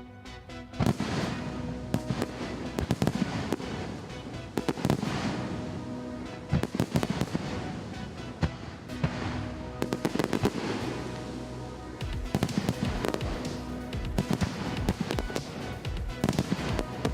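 Fireworks bursting in quick succession, many sharp bangs and crackles close together, over music with held notes.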